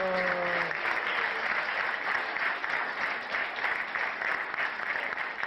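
Studio audience applauding steadily. In the first moment a man's drawn-out voice falls away.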